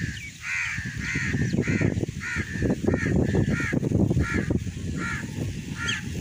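A harsh bird call, like a crow's caw, repeated about twice a second throughout, over a loud low rumbling noise.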